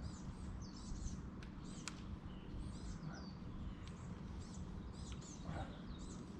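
Small birds chirping repeatedly, short quick high calls several times a second, over a low steady rumble of background noise.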